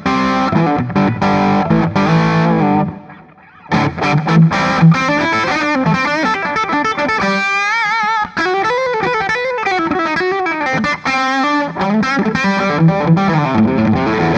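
Electric guitar on the bridge P-90 pickup of a Gibson Les Paul Special Double Cut, played through a Soldano Astro 20 amp with mild overdrive. It plays chords and riffs, stops briefly about three seconds in, then goes on with single-note lines that have string bends and vibrato.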